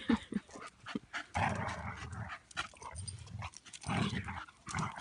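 Two dogs, a Dalmatian and a mini bull terrier, play-wrestling, with dog vocal sounds and scuffling in short, irregular bursts.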